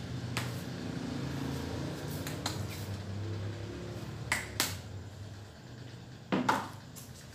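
Small plastic hand-sanitizer bottle being handled for hand hygiene: a few sharp clicks, two of them close together about four and a half seconds in, and a louder, slightly longer click a little after six seconds.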